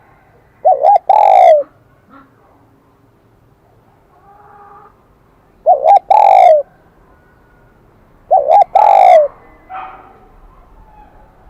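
Spotted dove cooing in the high, ringing 'kim đồng' voice: three calls, each two short notes followed by a longer falling coo.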